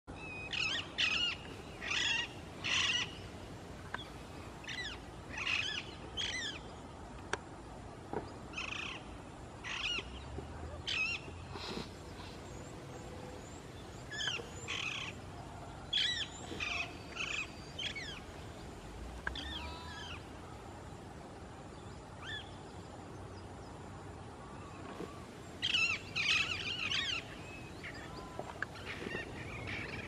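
A flock of parakeets calling: short, high-pitched calls in clusters of a few, with quieter gaps between. A busier run of many calls together comes about 26 seconds in.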